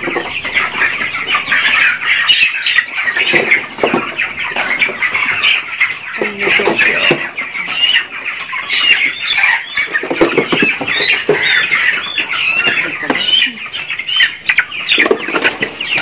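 A crowded flock of white broiler chickens squawking without pause, with bursts of wing flapping, as the birds are grabbed by hand and held by the legs: the alarm calls of chickens being caught.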